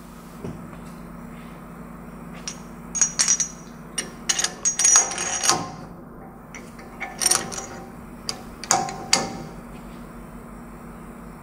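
Steel tool parts clinking and clanking against each other as a hydraulic cylinder and threaded rod are fitted to a hub-removal puller frame. Sharp metallic knocks with a short ringing tail come in four clusters, starting about three seconds in and ending about a second and a half before the end.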